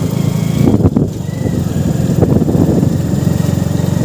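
Hero Glamour 125's single-cylinder engine running steadily as the motorcycle cruises along.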